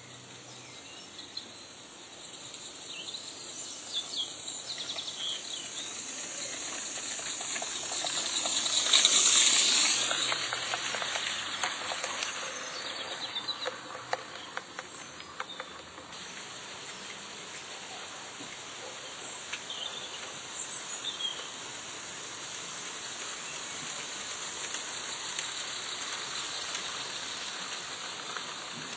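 Live-steam Roundhouse Millie model locomotive running past: a steady hiss of steam that swells to its loudest about nine seconds in and then fades, with light scattered clicks.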